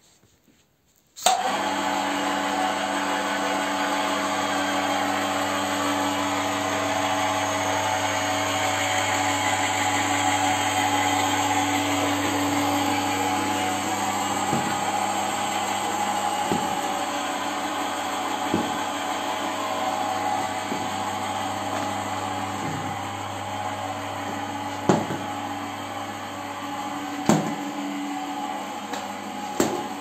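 Electric drive motor of a home-built stair-rail elevator running steadily as it lowers a platform carrying a robot vacuum down the staircase, starting with a click about a second in. A few sharp clicks and knocks sound along the way.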